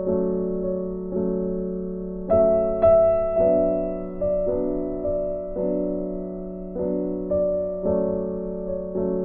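Background piano music: slow chords struck about once a second, each ringing and fading before the next.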